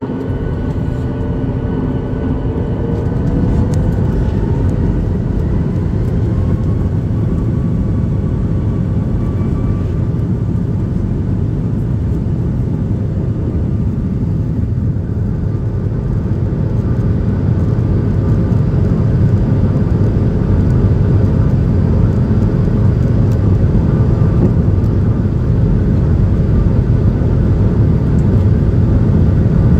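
Airliner jet engines heard from inside the cabin, spooling up with a rising whine over the first few seconds, then running steadily at takeoff power over the low rumble of the takeoff roll.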